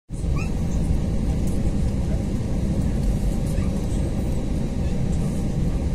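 Steady low rumble inside the cabin of an Airbus A320 taxiing, its engines running at idle thrust as the airliner rolls along the taxiway.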